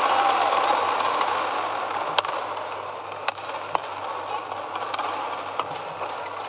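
Badminton rally: rackets strike the shuttlecock with sharp cracks, roughly one every half second to a second, over a steady murmur of the hall's crowd that slowly fades.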